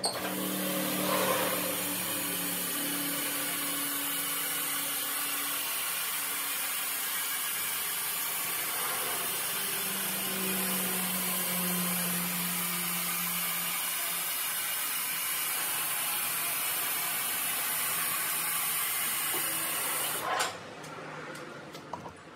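Car lift lowering a car: a steady hiss that cuts off abruptly about twenty seconds in, followed by a few clicks and knocks.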